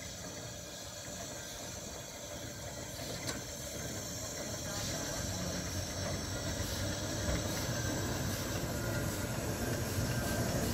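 30-ton steam crane ADM 1091/30 travelling slowly along the track under its own steam, hissing steam and rumbling on the rails, growing steadily louder as it approaches.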